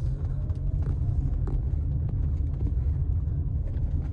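2016 Toyota RAV4 Hybrid driving over a rough road: a steady low road and tyre rumble with a few faint light knocks, and no suspension clunk, as the worn front stabilizer bar bushings have just been replaced.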